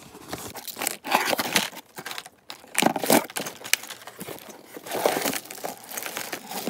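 Packaging crinkling and rustling in irregular handling noises, with short crackles and tearing, as items are taken out of a parcel and laid out on a table.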